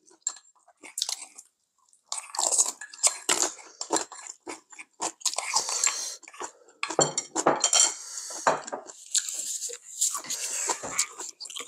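Close-miked eating: chewing with occasional crunches, and spoons and chopsticks clicking against earthenware bowls in irregular short bursts.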